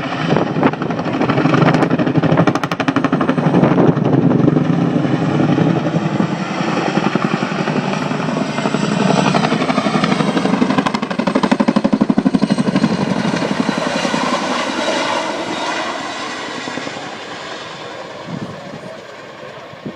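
Chinook twin-rotor helicopter flying a display pass, its rotors beating with a rapid blade slap, loud and then fading away over the last several seconds.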